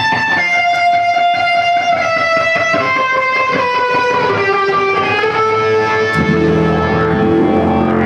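Electric guitar playing sustained lead notes, some bent in pitch. A heavier, lower chord with bass comes in about six seconds in.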